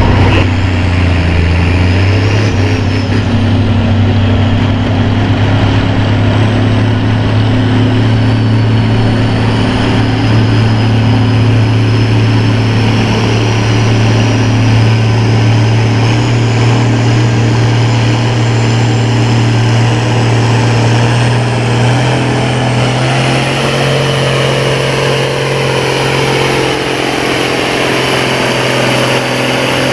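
Farm pulling tractor's engine running hard and steady under full load as it drags the weight-transfer sled down the track, its pitch stepping up slightly about three quarters of the way through.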